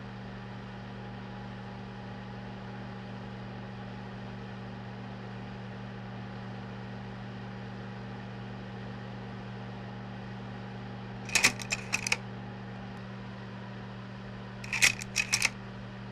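Steady electrical hum with hiss, broken twice by short bursts of sharp metallic clicks, a handful of clicks in each burst: once about two-thirds in and again near the end.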